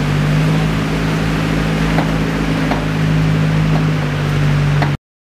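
Vehicle engine running steadily while driving slowly over a rough dirt road, heard from on board: a constant drone with a few light knocks and rattles. It cuts off abruptly near the end.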